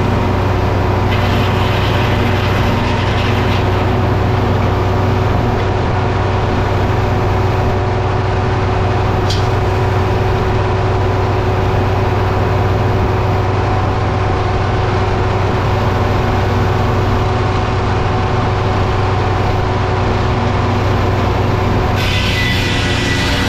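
A heavy engine running steadily at constant speed, with a strong low hum. A brief high squeak cuts through about nine seconds in.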